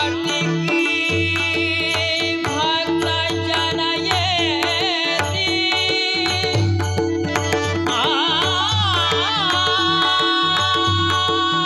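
Instrumental passage of Marathi abhang devotional music, with tabla strokes and steady held drone notes under a melody line that glides and wavers in ornaments and moves higher about eight seconds in.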